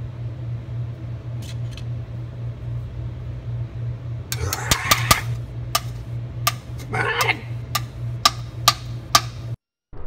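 Four-slot electric toaster running with a bagel in it: a steady low hum, joined about halfway through by a run of sharp, irregular ticks. The sound cuts to silence just before the end.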